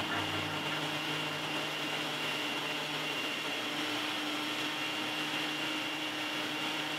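Personal bullet-style blender running steadily as it blends pomegranate seeds, ginger, lemon and water into juice, its motor noise carrying a constant high whine.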